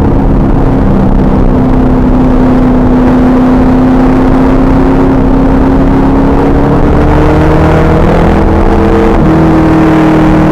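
Pontiac Trans Am Firehawk's V8 running hard at track speed, its note climbing slowly over the last few seconds and changing about nine seconds in. A heavy rush of wind and road noise on the camera microphone covers much of it.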